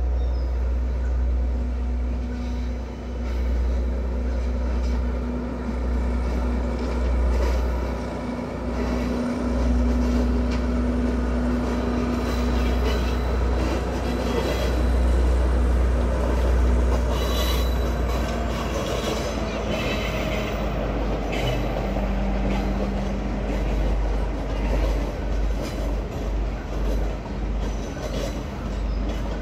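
Passenger train crossing a stone arch viaduct: a steady engine hum over a low rumble, with sharp wheel-on-rail clicks and screeches in the middle part.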